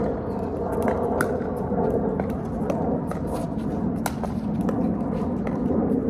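Pickleball paddles popping against plastic balls on several courts at once: sharp, irregular pops a few per second over a steady low background din.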